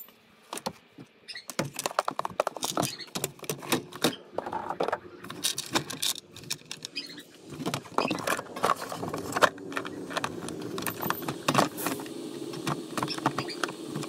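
Plastic air intake box and intake hose being handled and fitted back into a Toyota Prius engine bay: scattered clicks, knocks and rattles of hard plastic parts. A steady low hum sets in about two-thirds of the way through.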